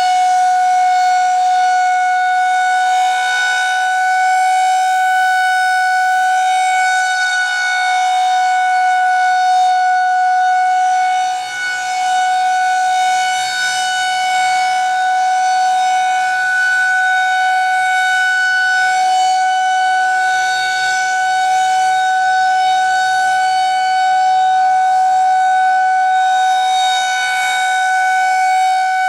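Federal Signal 2001-130 outdoor warning siren sounding a loud, steady single tone with strong overtones, holding one pitch throughout, with a brief dip in level about a third of the way through.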